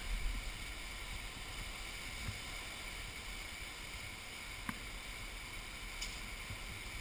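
Flash flood of muddy, debris-laden water rushing through a desert wash: a steady rushing noise, with one small click about two-thirds through.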